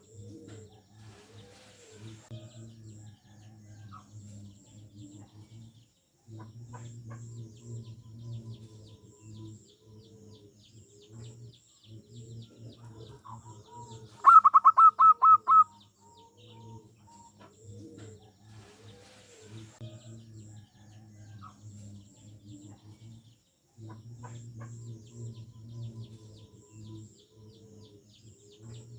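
Zebra doves (perkutut) cooing in repeated low phrases, with small birds chirping faintly higher up. About halfway through, a loud quick run of sharp notes cuts in for about a second and a half.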